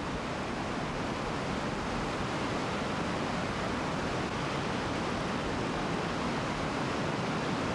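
River rapids rushing steadily: an even, unbroken wash of turbulent white water.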